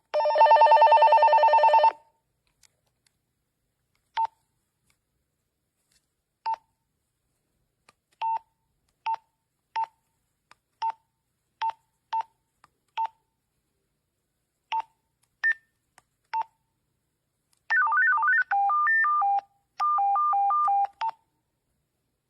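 Electronic beeps from a children's walkie-talkie as its buttons are pressed: a loud buzzy tone lasting about two seconds at the start, then a string of short single beeps at uneven intervals, and near the end a quick run of beeps stepping between a few pitches, like a short call tune.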